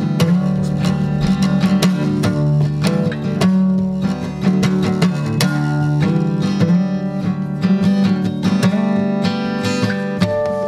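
Music played on strummed and picked acoustic guitar.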